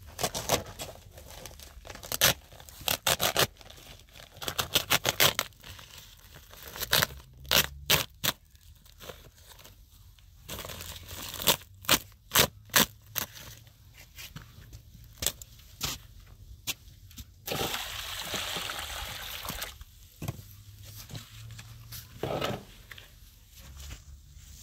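Irregular sharp taps and knocks in quick clusters, mixed with scraping, and a few seconds of harsher continuous scraping or hissing a little past the middle.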